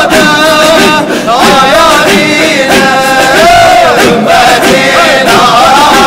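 Sufi dhikr: a circle of men chanting in a steady repeated rhythm while a solo male voice sings a melismatic hymn melody over them.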